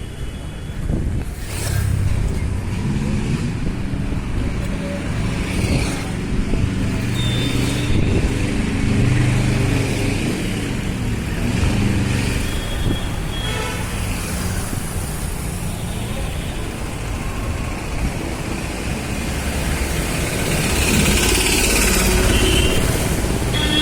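Road traffic passing close by: vehicle engines running past one after another, loudest in the middle and again near the end, with a few short high tones.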